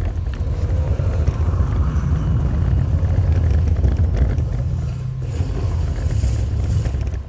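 DUB 10-inch car subwoofer running free-air, without a box, playing loud, deep bass at high cone excursion.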